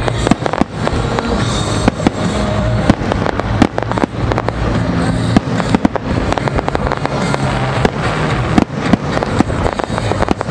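Aerial firework shells bursting in quick succession: many sharp bangs and crackles, several a second, with music playing underneath.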